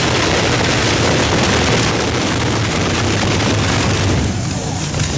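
Unlimited-class pulling tractor's big racing engines running loud, a deep steady rumble with a harsh noisy edge that eases slightly about four seconds in.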